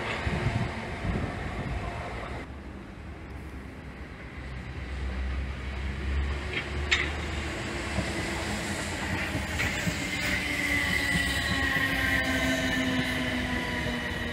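A Class 455 electric train running away and fading, then a second electric train coming in on the far line. The second train's whine falls steadily in pitch, with a few sharp clicks from the wheels.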